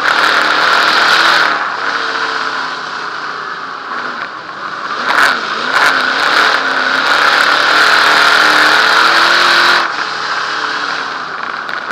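Dirt modified race car's V8 engine heard from inside the car at racing speed, with the throttle lifting and reopening through the turns. It runs hard at first, eases off about a second and a half in, wavers in pitch as it is feathered through the corner, then runs hard again before easing off near the end.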